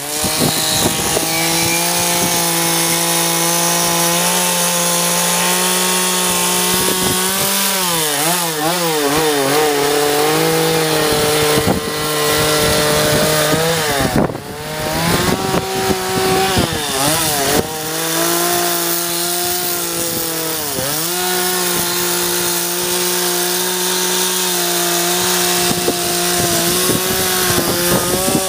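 Chainsaw running hard while carving a log, its engine pitch holding steady for stretches and then wavering and dipping several times, most deeply about halfway through.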